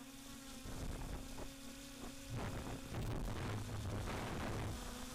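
Multirotor camera drone's motors and propellers buzzing at a steady pitch, picked up by its onboard camera. From about two seconds in, rough bursts of wind noise come and go over the buzz.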